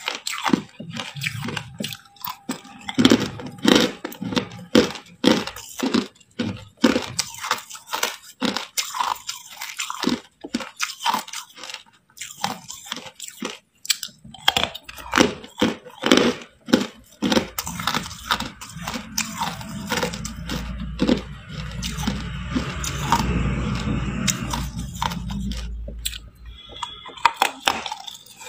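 Hard ice being bitten and crunched between the teeth, close up: a rapid, irregular run of sharp cracks and crunches, turning into a steadier, muffled crunching stretch in the last third.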